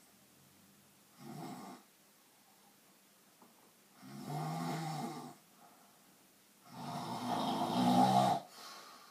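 Snoring: three snores in slow succession, a short one about a second in, then two longer ones, the last the longest and loudest.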